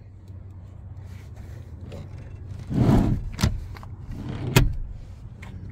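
Handling noises in a pickup's cab as the front seat is set back into place: a muffled shuffle and thump about three seconds in, then two sharp clicks from the seat latch and the door, over a steady low hum.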